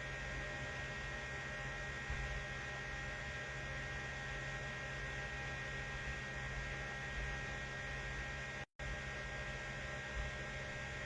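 Steady electrical mains hum with a bed of hiss, holding several fixed tones and no other activity. There is a brief total dropout about nine seconds in.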